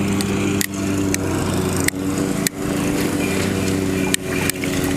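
A steady small-engine hum runs throughout, with sharp separate clicks about once a second from fishing tackle as a hooked fish is reeled in.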